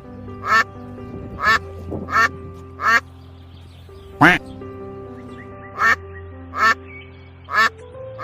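Duck quacking, about eight short quacks spaced roughly a second apart, with one louder, lower call about four seconds in, over background music with sustained tones.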